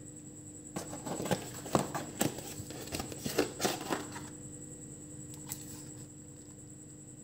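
A cardboard fast-food box being opened by hand: a run of crackling, snapping paperboard sounds and rustles for about three seconds as the folded lid tabs are pulled free and lifted, then a single faint click near the end.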